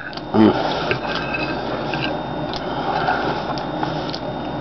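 Close-up chewing of a mouthful of bacon bomb, a steady wet, crackly run of mouth noises with small clicks, with a short hum of the voice about half a second in.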